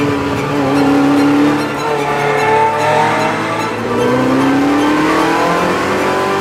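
Ferrari F355's 3.5-litre V8 revving hard under acceleration, its pitch climbing, dipping briefly about four seconds in, then climbing again.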